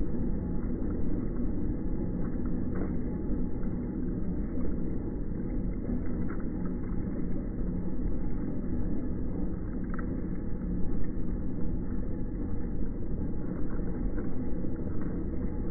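Steady low rumble of a cable car line, as the cable car on the street and the haul cable running in its slot under the road, with a few faint clicks and knocks.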